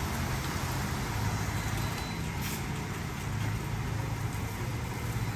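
WashWorld Razor touchless car wash running at the end of its rinse cycle: a steady whoosh of noise over a constant low hum.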